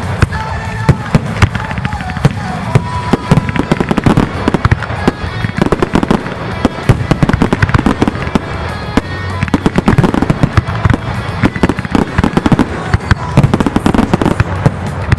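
Aerial fireworks shells bursting in a rapid, unbroken series of bangs, with music playing underneath.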